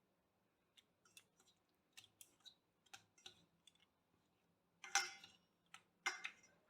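Raw fish pieces being mixed by hand with salt and turmeric in a container: faint scattered clicks and taps, then two louder, longer handling noises about five and six seconds in.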